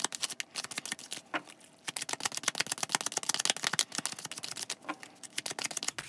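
A deck of Lenormand cards being shuffled by hand, overhand: a fast, continuous run of light card clicks and slaps.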